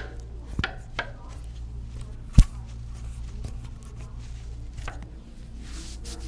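Sharp knocks from a chiropractic adjustment on a treatment table: a few light clicks and knocks, then one loud, sharp knock about two and a half seconds in.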